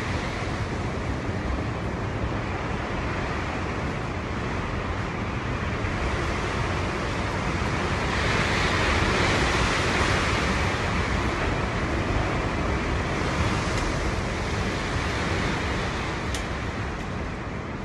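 Strong storm wind blowing and buffeting the microphone, a steady rushing roar that swells into a stronger gust about halfway through and eases off near the end.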